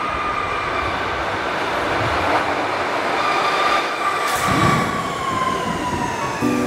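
Metro train running alongside a station platform, a steady rumble of wheels and running gear with a whine that slowly falls in pitch. Music starts near the end.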